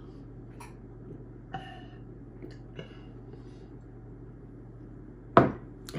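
A man gulping down a glass of liquor, with faint swallowing and breathing sounds over a low room hum. Near the end comes a single short knock as the emptied glass is set down on a wooden table.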